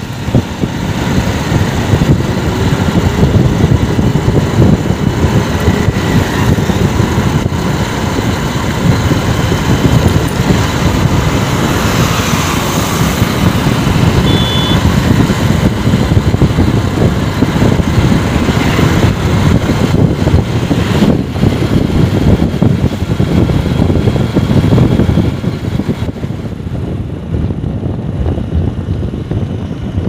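Motorcycle riding at road speed: the engine running steadily under heavy wind buffeting on the microphone. A brief high beep about halfway through, and the sound turns duller and a little quieter near the end.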